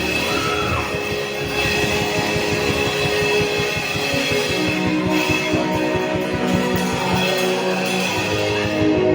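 Instrumental background music of held, sustained chords that change a few times, without voices.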